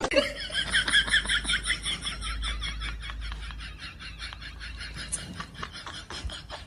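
An animal making a rapid pulsing sound that slowly grows fainter.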